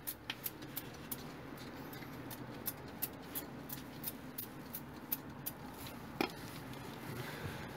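Aerosol can of gloss wax spraying onto the quad's frame tubes: a quiet, steady hiss with small irregular clicks scattered through it.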